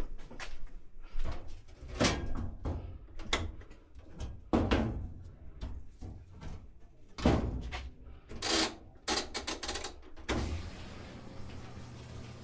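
A string of knocks, clunks and clatter of hard objects being handled. About ten seconds in, these give way to a steady rushing noise with a low hum.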